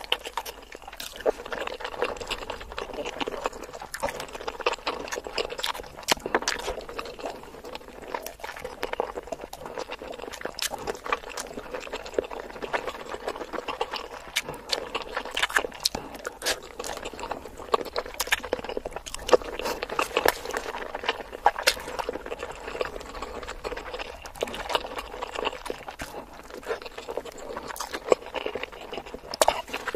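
Close-miked chewing of boiled eggs coated in masala sauce: wet, sticky mouth sounds with many sharp smacks and clicks.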